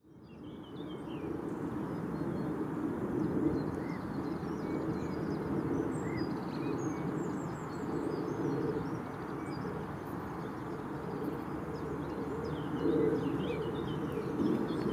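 Early-morning birdsong: many small birds chirping and singing in scattered short notes over a steady low background hum. The sound fades in over the first two seconds.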